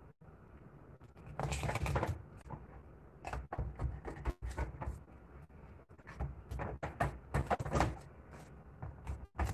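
Knife scraping and knocking on a plastic cutting board as a milkfish is cut open and cleaned: irregular scrapes and taps, loudest about two seconds in and again past the middle.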